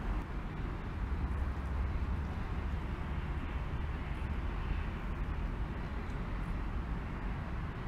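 Steady outdoor background noise: a low rumble with a faint hiss over it, with no distinct events.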